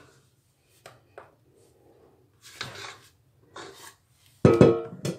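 A silicone spatula scrapes whipped cream off the inside of a stainless steel stand-mixer bowl in a few short scrapes, followed by a louder burst near the end.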